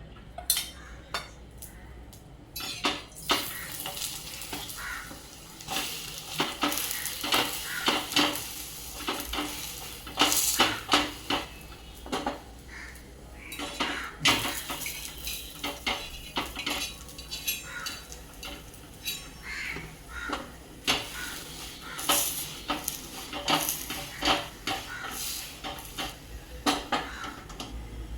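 A paratha frying and sizzling on a griddle, with a cooking utensil scraping and clinking against the pan again and again. The sizzle comes up about two and a half seconds in.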